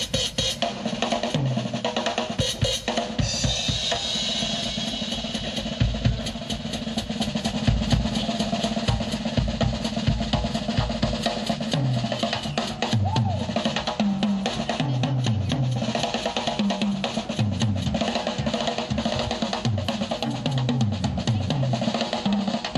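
Drum kit solo played live: fast, dense rolls on snare and toms with bass drum hits, and tom runs that step down in pitch again and again. A cymbal wash swells about three seconds in.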